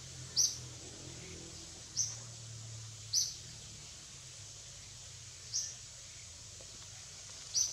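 A bird chirping: short, sharp, high calls repeated every second or two, about five in all, over a faint low hum.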